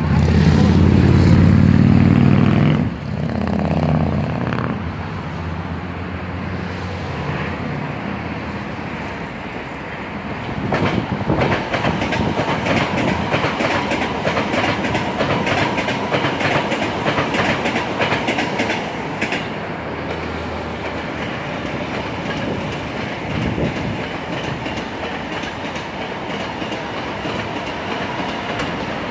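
Hankyu electric trains passing on an elevated curve, wheels clattering over rail joints with a faint steady high whine. It opens with a louder pitched hum for about the first three seconds, before the train clatter builds from about ten seconds in.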